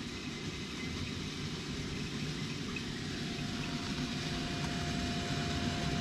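Steady low rumble from a running reflux still rig, with a faint steady tone coming in about halfway through.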